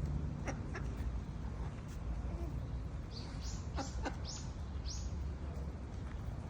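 A bird chirping: four or five short, high, rising chirps in quick succession in the middle, over a steady low outdoor rumble, with a few light taps.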